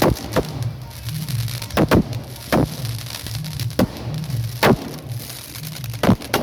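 Firecrackers going off in about nine sharp bangs at irregular intervals, over music with a steady low beat.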